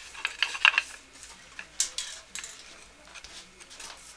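Wooden chair parts clicking and knocking together as turned spindles and the back rail are dry-fitted into a chair's back leg: a cluster of sharp clicks about half a second in, another knock near two seconds, then lighter scattered taps.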